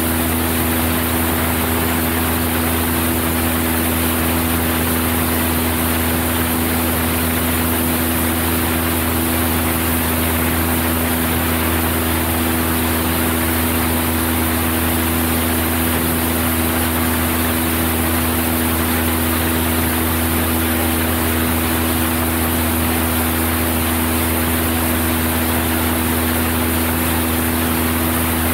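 Single-engine Cessna 172's piston engine and propeller running steadily in flight: a constant drone with a low hum and a steady tone that never changes.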